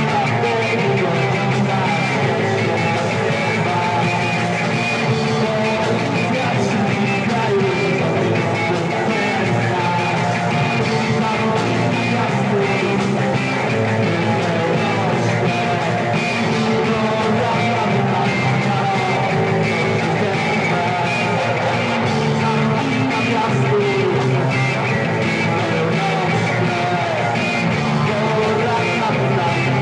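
Rock band playing live: electric guitar and drum kit with cymbals, with a voice singing over the instruments.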